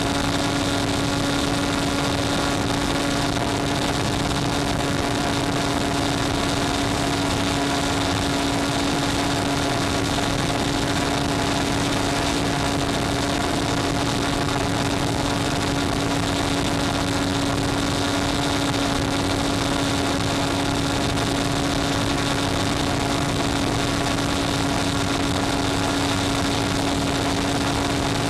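Electric motor and propeller of an FPV model plane at steady cruise throttle, heard through the analog video link's audio: an unchanging drone with a constant hum and a hiss.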